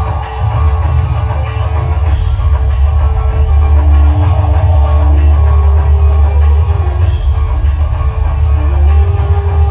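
Loud music with a heavy, steady bass and long held notes that move to a new pitch a few times.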